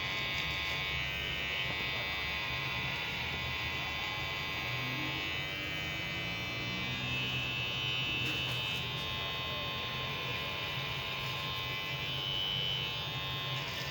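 Electric hair clipper running with a steady buzz, its freshly sharpened blade cutting hair.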